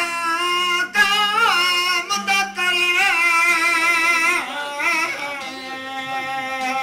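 A man sings a Sindhi folk song in a sliding, ornamented voice over a steady drone of long-necked string instruments.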